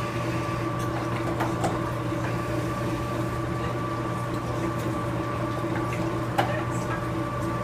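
Electric meat grinder running steadily, its motor turning the auger to push meat and fat through a coarse die. A steady hum with a few light knocks, one near the end.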